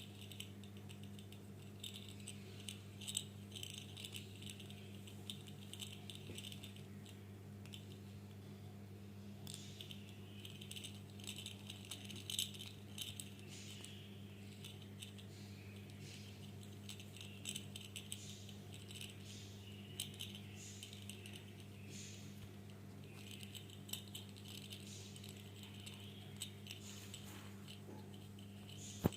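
A ball toy rattling and clicking as a rainbow lorikeet plays with it, in irregular bursts, over a steady low hum.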